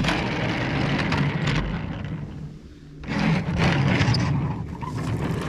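Toy truck pushed by hand across a plastic tabletop, its wheels rolling with a rough, scraping rumble in two runs, the second starting about three seconds in.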